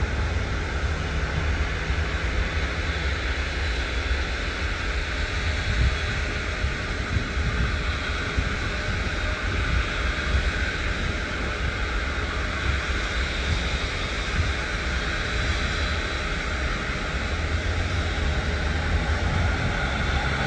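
Jet airliner's engines running at a steady level, with a deep rumble underneath.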